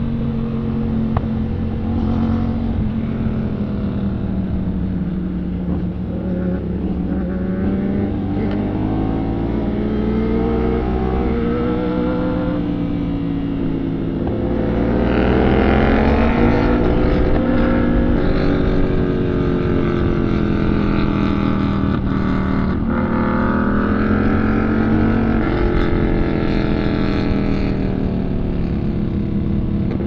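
Sport motorcycle engine running hard, its pitch repeatedly climbing and dropping as it revs out and changes speed, with wind noise on the microphone. It gets louder about halfway through.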